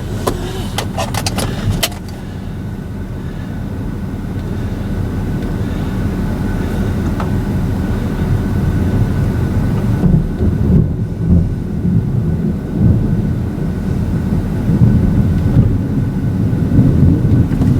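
Low rumble of a vehicle heard from inside the cab, its engine running. The rumble grows louder and turns uneven and surging in the second half, with a few sharp clicks in the first couple of seconds.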